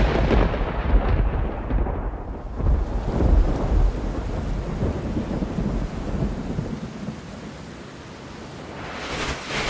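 Thunder sound effect: a loud clap and deep rolling rumble that slowly dies away over a steady rain-like hiss, with a brief rising swell near the end.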